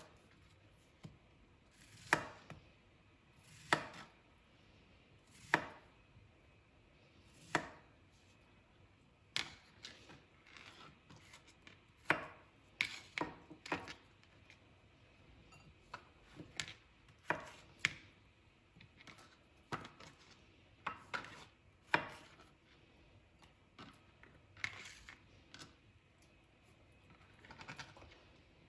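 Kitchen knife chopping on a cutting board in separate sharp strokes, spaced a second or two apart at first, then in quicker runs of three or four.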